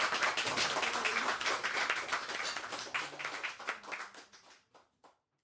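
Audience clapping, thinning out and dying away about four and a half seconds in.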